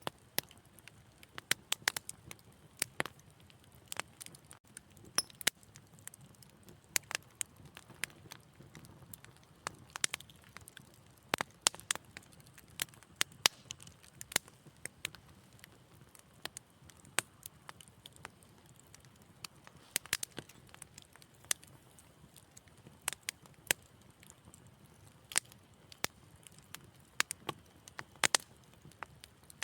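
Wood fire crackling: irregular sharp pops and snaps, a few every second, over a faint low rumble of burning.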